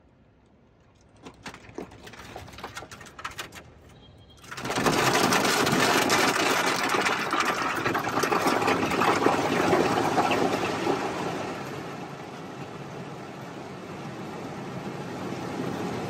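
Water from a roadside waterfall pouring onto a car. Scattered drops strike the car at first, then about four and a half seconds in a sudden heavy rush of water drums on it, easing somewhat after about eleven seconds but still running.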